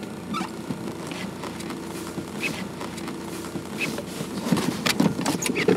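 Steady hum of an idling car engine, with rustling, shuffling and small knocks as a person shifts along a car's back seat, busier near the end.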